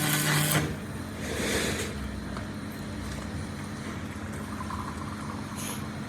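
Vehicle engine running steadily with a low hum, with a brief louder burst of sound in the first half-second and another shorter one about a second and a half in.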